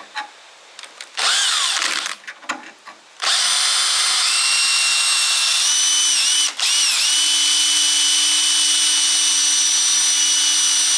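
Power drill with a small pilot bit drilling into a spot weld in sheet steel, to centre the weld for the larger bit. A short burst comes about a second in, then steady drilling from about three seconds in, with the drill's whine dipping and briefly stopping a little past the middle before it runs on.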